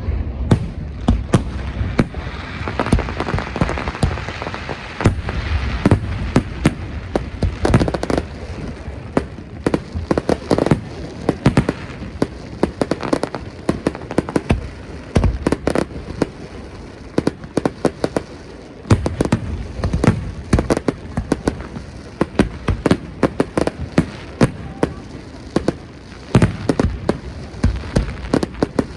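Aerial fireworks going off: many sharp bangs and pops in quick, irregular succession, with crackling between them.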